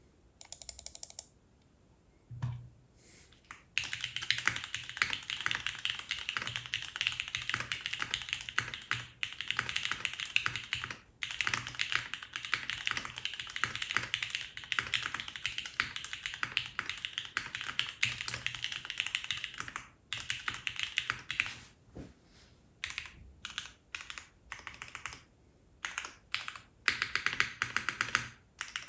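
Typing on a custom mechanical keyboard with lubed linear Cherry MX Black Clear Top switches in an O-ring-mounted aluminium plate: a fast, steady run of keystrokes, then shorter bursts with pauses from about two-thirds of the way in. Recorded on a phone's built-in microphone.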